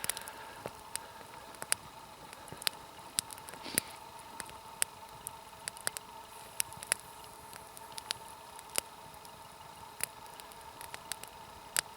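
Campfire crackling: irregular sharp pops and snaps, roughly one or two a second, over a faint steady tone.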